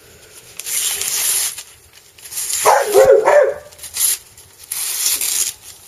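A dog gives one short, wavering bark or whine about three seconds in, the loudest sound. Around it come several hissing strokes of a sharp knife slicing through thin magazine paper.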